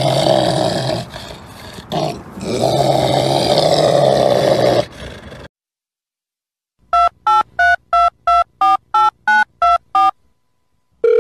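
A loud, rough animal cry lasting about five seconds, with a dip in the middle. After a second of silence, about ten telephone keypad dialing tones (DTMF) beep in quick succession, roughly three a second, as a number is dialed.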